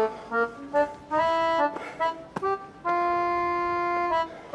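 Instrumental background music: a melody of short notes, then one long held note about three seconds in.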